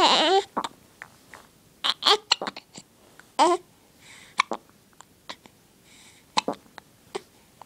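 Baby hiccupping repeatedly: short, sharp squeaky hics about one every second or two, with quiet between them.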